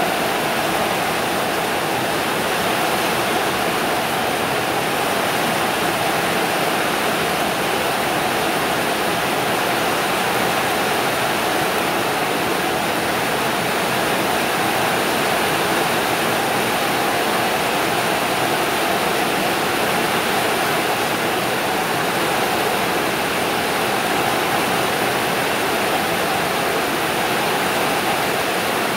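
Heavy rain pouring steadily onto a corrugated metal roof and tiled roofs, an even, unbroken hiss.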